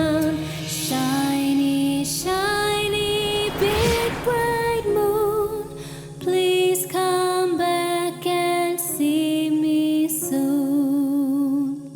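Children's background music: a bright melody of short held notes over a steady bass, with a brief whoosh sweeping up and down about four seconds in.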